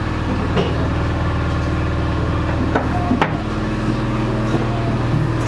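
Steady low hum of auxiliary machinery running in a lifeboat's engine room while the main engines are stopped, with a few light knocks, the sharpest about three seconds in.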